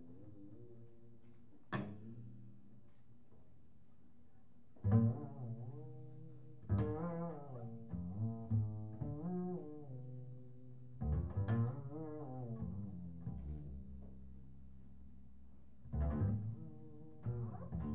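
Double bass in free improvisation: a series of notes with sharp attacks that slide up and down in pitch and die away, with short pauses between them.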